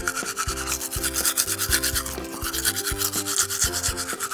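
Toothbrush scrubbing with fast, even back-and-forth strokes, about eight to ten a second, over light background music.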